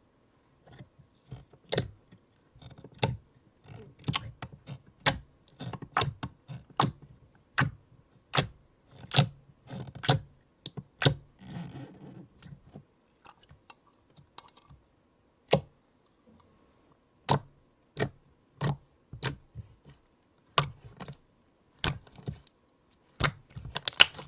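Slime being squeezed and poked by hand, giving an irregular run of sharp wet pops and clicks, about one or two a second. There is a softer squishing stretch about halfway through and a quick flurry of pops near the end.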